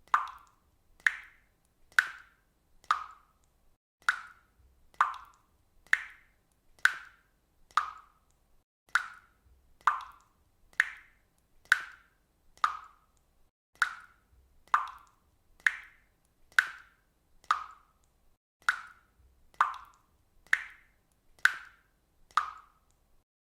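Water dripping steadily, one drop about every second, each a short pitched plink. The pitch shifts slightly from drop to drop.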